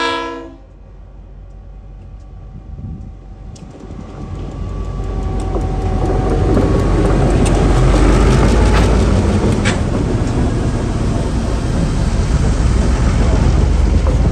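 A TasRail freight train's horn blast from diesel locomotives DQ 2001 and 2051 cuts off about half a second in. The locomotives' diesel rumble then builds from about four seconds in and stays loud as they pass close, followed by hopper wagons rolling by, with the wheels clicking sharply on the rails a few times.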